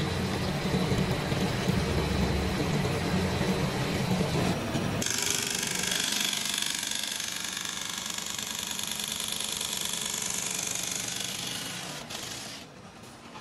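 Factory machinery running with a deep rumble, switching abruptly about five seconds in to a higher, hissing machine sound that fades near the end.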